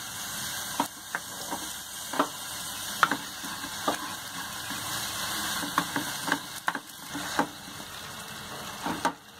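Jaggery melting in hot ghee in a nonstick pan, sizzling steadily, with a wooden spatula stirring it and knocking against the pan in short, irregular clicks. This is the start of the jaggery syrup (chashni).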